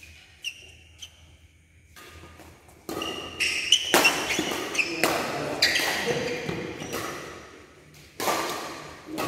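Badminton doubles rally in an echoing indoor hall: sharp racket strikes on the shuttlecock and short squeaks of court shoes on the floor. It is sparse at first and busy from about three seconds in, with another burst of hits and squeaks near the end.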